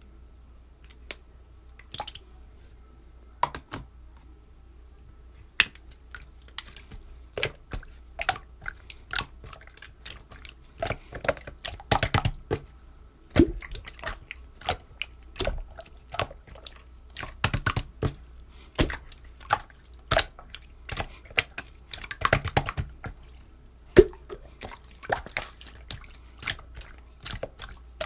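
Close-miked drinking and wet mouth sounds with a soft drink: irregular sips, smacks and clicks of varied loudness, sparse at first and busy from about five seconds in.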